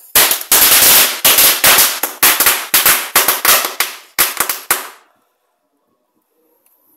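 A 'pirata zebrotto' firecracker going off in a rapid, uneven string of about twenty loud, sharp bangs over some five seconds. The bangs then stop suddenly.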